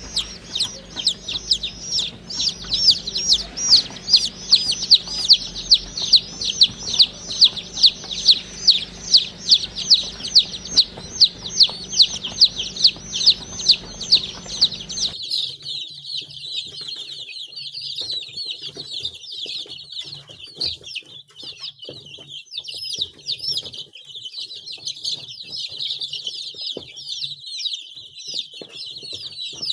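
Baby chicks peeping: for the first half a regular run of loud, high, falling peeps, about three a second, then from about halfway many chicks peeping at once over one another.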